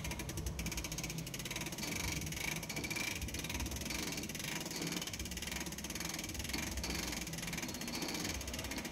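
Howard Miller grandfather clock being wound with its hand crank: the winding ratchet clicks in a steady rhythm as a brass-cased weight is drawn up on its cable.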